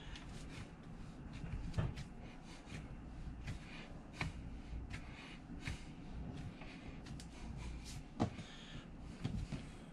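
Hands kneading pie dough on a countertop: soft pressing and rubbing, with scattered light knocks, the sharpest about eight seconds in.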